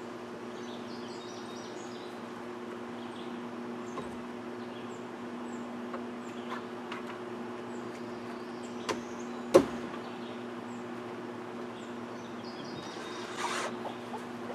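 Cordless drill running steadily with an even motor hum as it bores up into a wooden log beam. There is a sharp knock about two-thirds of the way through and a brief scrape near the end, with small birds chirping in the background.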